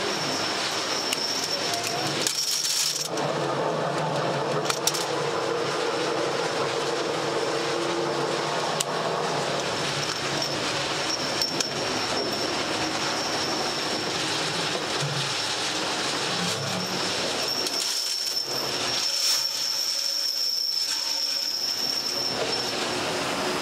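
Steady running noise of workshop machinery with a thin high whine held throughout and a few scattered metallic clicks.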